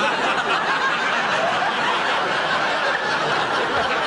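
Studio audience laughing, one long unbroken wave of crowd laughter.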